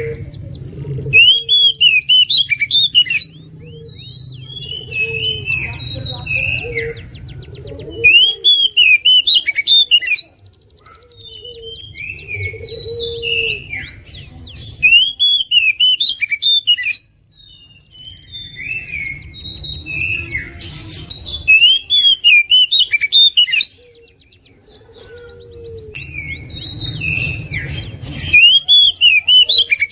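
Oriental magpie-robin singing: loud bursts of sharp, rapid whistled notes and fast trills, each burst about two seconds long and coming back about every six or seven seconds, with softer chirps in between.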